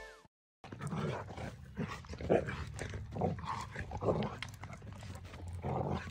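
A dog making short, irregular vocal sounds as it plays roughly with a pine cone on the dirt.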